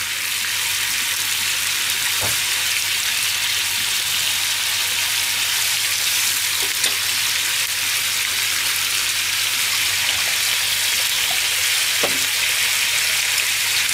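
A soy-sauce sauce with chopped green onion sizzling steadily in a frying pan over a gas burner. A spatula stirs it, with a couple of light clicks against the pan.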